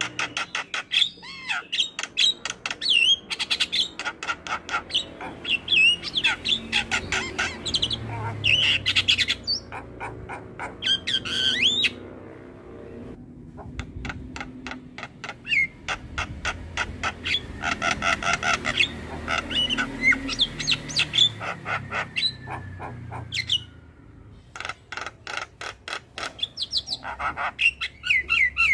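Javan myna (jalak kebo) singing a long, varied song of fast chattering clicks mixed with whistled, sliding notes. It pauses briefly about halfway through and again near two-thirds through.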